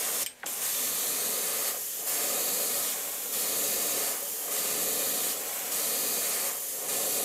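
Airbrush spraying white paint in a steady hiss, broken by brief pauses about every two seconds.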